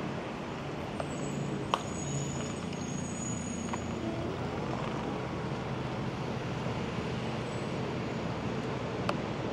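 Steady city street traffic noise, with a faint high squeal lasting about two seconds near the start and two sharp clicks, one early and one near the end.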